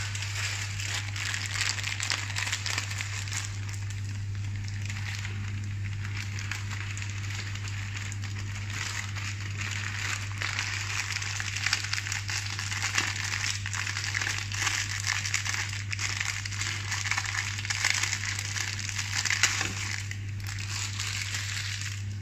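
Luncheon meat sizzling and crackling in a frying pan, with a plastic instant-noodle packet crinkling as it is handled and torn open. A steady low hum runs underneath.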